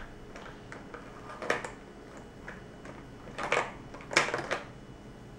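A child handling felt-tip markers against a sketchbook and tabletop: scattered light clicks and taps, with a few sharper ones about three and a half and four seconds in.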